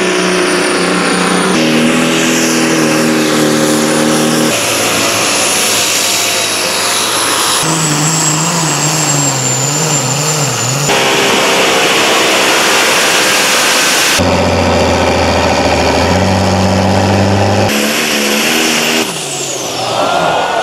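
Tractor- and truck-pulling engines running hard under load in a quick montage, the sound cutting abruptly to a different engine every two to three seconds, with the revs wavering in one clip near the middle.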